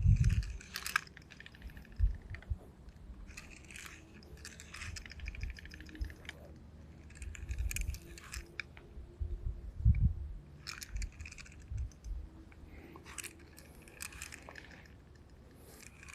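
Short, irregular bursts of scraping and crunching with low knocks, about every one to two seconds, as a dull blade is worked against a well pipe and barely cuts into it.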